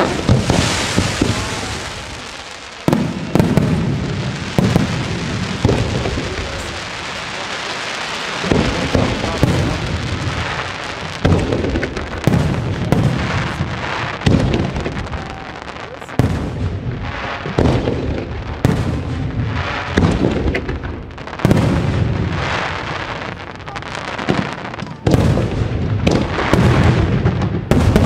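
Fireworks display: aerial shells bursting. It opens with a dense crackling hiss, then sharp bangs come about once a second, each followed by a low rumbling echo.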